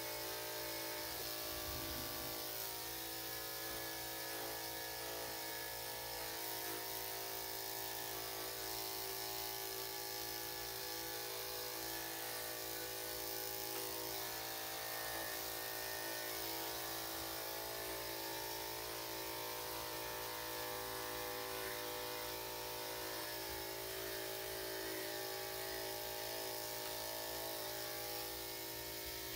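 Electric dog grooming clippers running steadily with an even motor hum while shaving the dog's coat.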